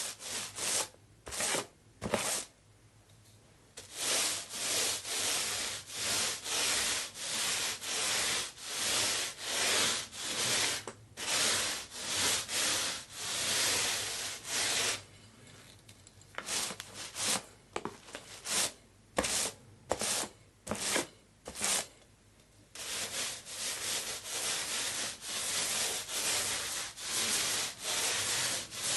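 Paint roller rolled back and forth over a surface, a repeated rubbing stroke about twice a second, in runs broken by short pauses.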